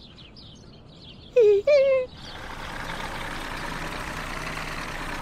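A truck engine running steadily, setting in about two seconds in, just after two short voice-like calls.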